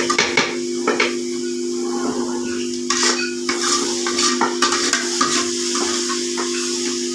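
A spoon stirring and scraping fenugreek leaves frying in oil in an aluminium pot: a steady sizzle with irregular knocks and scrapes of the spoon against the pot, over a steady hum.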